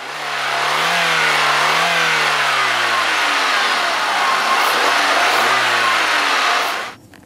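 Volkswagen 1.6 SR four-cylinder petrol engine being revved: the pitch climbs, falls back toward idle around the middle, climbs again, then drops. The sound cuts off suddenly near the end.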